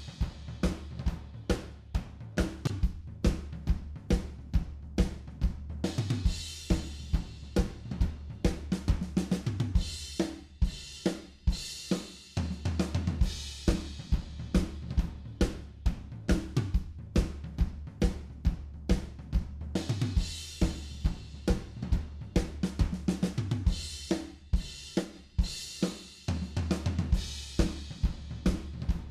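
Recorded live drum kit playing a steady groove, with kick, snare, hi-hat and cymbals, over a bass line of sustained low notes.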